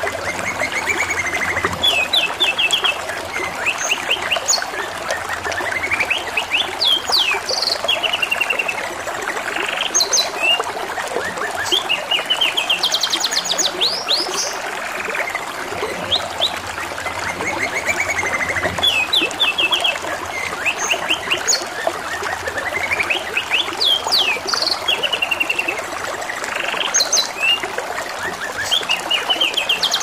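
Domestic canary singing: phrases of fast, high trills and chirps coming every few seconds, over a steady trickle of running water.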